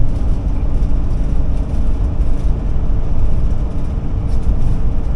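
Ford E-450 motorhome cruising at road speed, heard from inside the cab: a steady low engine and road rumble with a faint steady hum over it.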